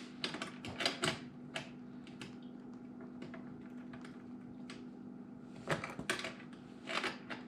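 Scattered light clicks and taps of hand work on a dishwasher's adjustable leveling legs, sharpest about a second in and again around six to seven seconds in, over a faint steady hum.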